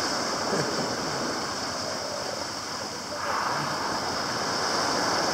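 Steady rushing of water on a beach, growing a little louder about three seconds in.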